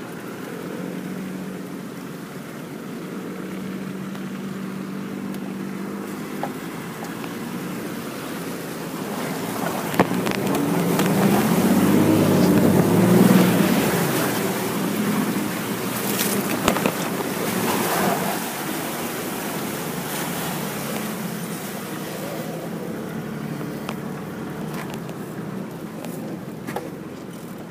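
A four-wheel-drive vehicle's engine running steadily as it drives through a creek crossing. Water rushes and splashes around the vehicle, building to its loudest about halfway through, where the engine is also at its loudest. The splashing dies away, leaving the engine running on.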